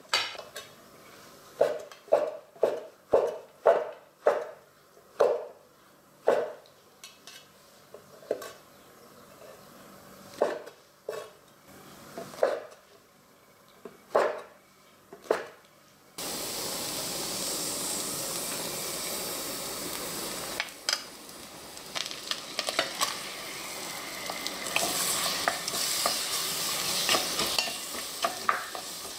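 A large kitchen knife slicing shiitake mushrooms on a wooden cutting board, in separate chops that come quickly at first and then thin out. About sixteen seconds in, the sound changes abruptly to sliced abalone sizzling in a black pot, with a wooden spoon stirring and scraping through it.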